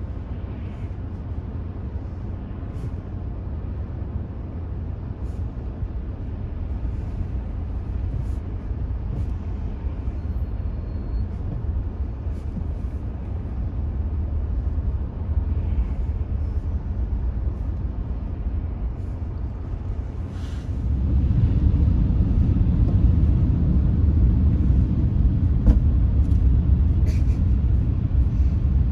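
Car driving on city streets: a steady low rumble of road and engine noise, growing markedly louder about 21 seconds in.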